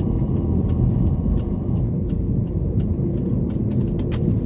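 Steady road and engine rumble inside a moving Toyota Corolla's cabin, with faint light ticks over it.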